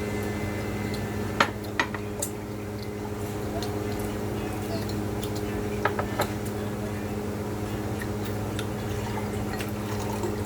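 A person eating: wet chewing and mouth sounds, with a few sharp clicks around a second and a half in and again around six seconds in, over a steady low hum.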